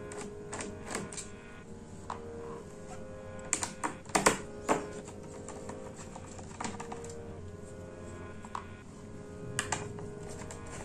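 Light clicks and taps of a plastic laptop case being handled and worked on during disassembly. Irregular sharp clicks, bunched in a few quick clusters a little before halfway and again near the end.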